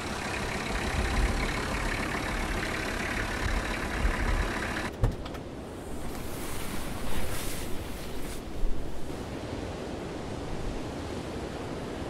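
Volkswagen Transporter van's engine running with a steady low rumble for about the first five seconds. It then gives way to a few brief rustles and knocks, and a steady softer background hiss.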